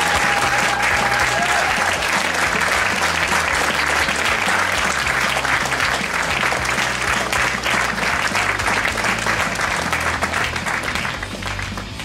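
Audience applauding steadily, the applause fading out near the end.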